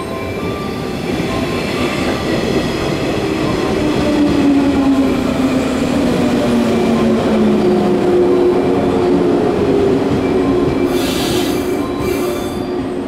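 JR 115 series electric train arriving and slowing along the platform: running noise with a motor and gear whine that falls steadily in pitch as it decelerates. Near the end come two short hisses of air.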